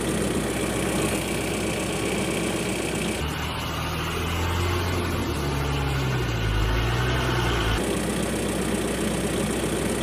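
Engine idling steadily, a dubbed sound effect rather than anything the string-pulled toys make. From about three to eight seconds in, a different engine clip takes over with a deeper hum that wavers in pitch, then the first one returns.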